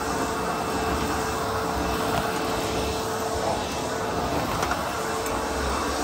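ProTeam Super CoachVac backpack vacuum running steadily, with a constant motor whine, as its floor tool is pushed back and forth over carpet.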